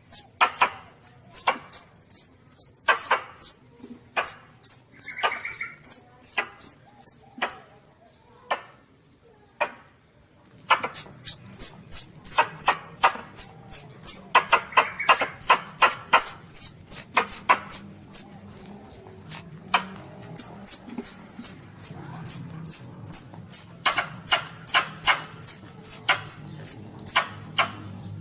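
Baby Asian palm civet (luwak) calls: a rapid run of short, high, squeaky cries, each falling in pitch, two to three a second. They break off for about two seconds near a third of the way in, then resume.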